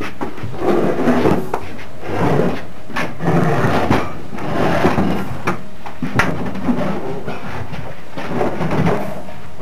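Heavy corroded metal engine wreckage being shifted and handled: irregular scrapes and clunks, with a few sharp knocks.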